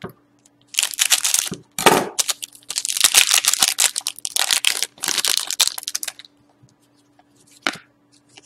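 A hockey card pack's wrapper being torn open and crinkled by hand, in several crackling bursts over the first six seconds, followed by a few light handling ticks.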